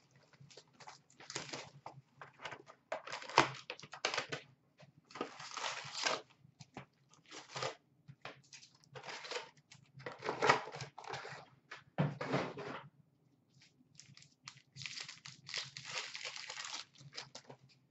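Cardboard hobby box of Upper Deck SP Authentic hockey cards being opened and its card packs handled and torn open: irregular bursts of crinkling and tearing.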